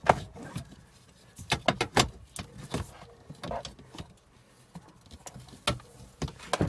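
Unbolted sheet-metal brace under the dashboard being lifted and shifted by hand, knocking and rattling against the surrounding trim in short, irregular clicks. The loudest knock comes right at the start, with a cluster about one and a half to two seconds in and a few more near the end.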